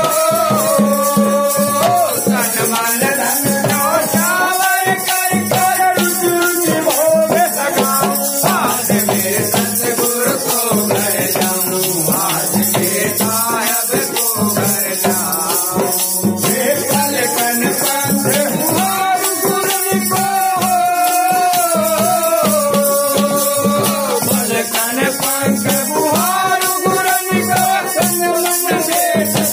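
A man singing a Hindi devotional bhajan into a microphone in long, gliding held phrases, accompanied by a rattle-type hand percussion that keeps a fast, steady beat.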